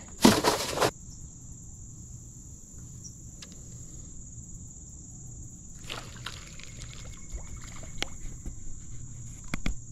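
Insects chirring in a steady, high-pitched drone. Right at the start comes a loud burst of noise, just under a second long, then a few faint clicks later on.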